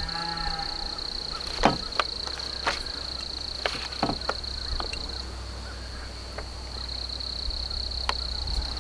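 Steady high-pitched insect trill that drops out briefly past the middle, with a short animal call at the very start. Light metal clinks and knocks of mill rail hardware being handled, the loudest a little over a second in.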